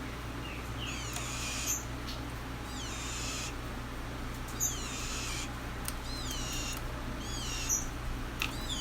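Green-winged saltator (trinca-ferro) chicks calling: repeated short bursts of high, raspy calls with descending notes, coming every second or two.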